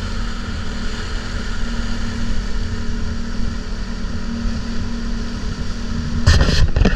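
Motorboat engine running steadily under way, a constant hum over rumble and hiss. A loud rushing burst comes near the end.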